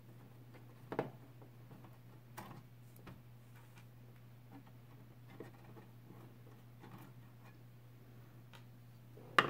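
Small screws being worked out of a plastic DVR case with a screwdriver and set down on a wooden table: faint, irregular clicks and taps, the loudest near the end, over a steady low hum.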